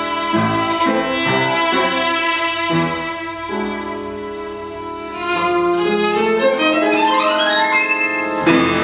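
Violin playing with grand piano accompaniment: held notes at first, then, from about halfway, a quick run of notes climbing steadily to the instrument's high register, with a strong new attack just before the end.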